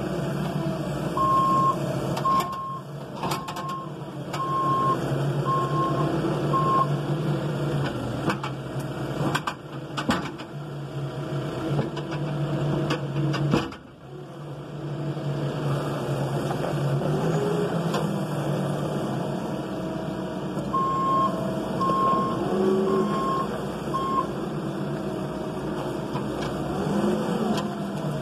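Case 580ST backhoe loader's diesel engine running steadily as the machine is driven, with its reversing alarm beeping about once a second: six beeps near the start and four more past the two-thirds mark. A few sharp knocks and clatters come in between.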